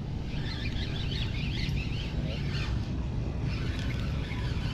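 Revros 2500 spinning reel being cranked as a hooked tilapia is reeled in to the bank, over a steady low rumble.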